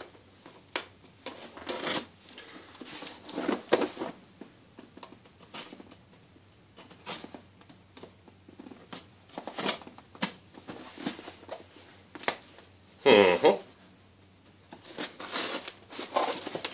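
Knife blade slicing through packing tape and cardboard along the seams of a shipping box: irregular scrapes, rasps and small taps as the blade is sawed and pried along. A brief, louder pitched sound stands out about two-thirds of the way through.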